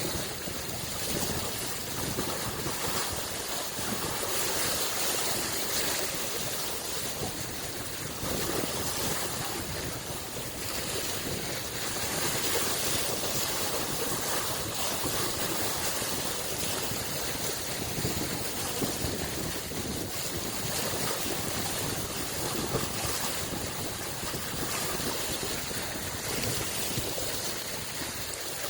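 Small lake waves lapping at the shore: a steady wash of water that swells and eases every few seconds.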